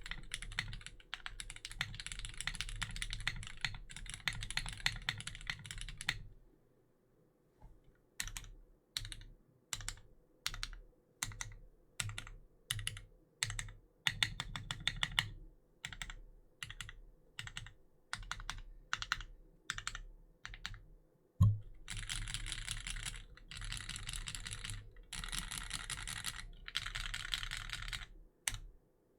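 Mechanical keyboard typing on a Tiger80 Lite with lubed Hyperglide Cherry MX Black linear switches and PBT keycaps. Fast continuous typing stops after about six seconds. After a short pause come single separate keystrokes roughly twice a second. About two-thirds through there is one loud, deep key thock, followed by more runs of fast keystrokes in short bursts.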